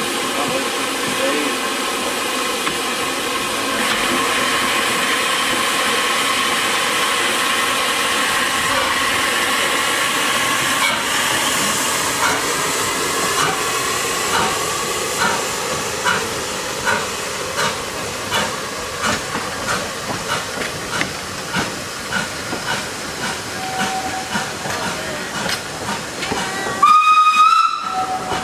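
Beyer Peacock 2-4-0T steam tank locomotive hissing steam as it stands, then starting away with exhaust beats that come steadily quicker as it gathers speed. Near the end it gives a short blast on its steam whistle, the loudest sound.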